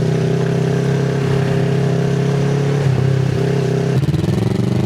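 2024 Kawasaki Z650RS parallel-twin engine running through an IXIL MK2 aftermarket full exhaust: a steady exhaust note for about four seconds, then the note breaks up and falls in pitch near the end.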